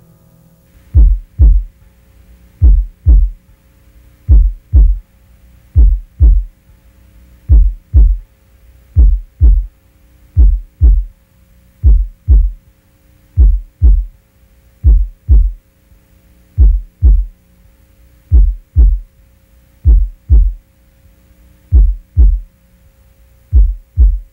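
Heartbeat sound effect: pairs of low thumps, lub-dub, repeating slowly and evenly at about one beat every one and a half seconds, over a faint steady hum.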